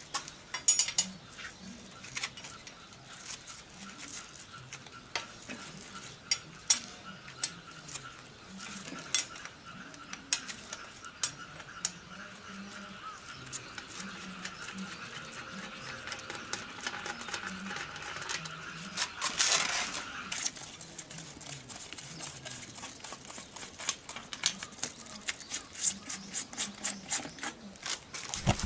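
Metal clinks and scrapes of a spanner and tappet inspection caps on a Honda CB750 Four's air-cooled cylinder head, as the caps are worked off for a tappet check: scattered sharp clicks. A short rush of noise comes about two-thirds of the way through.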